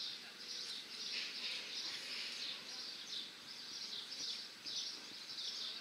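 Cicadas buzzing in a high, hissy pulse that repeats about twice a second.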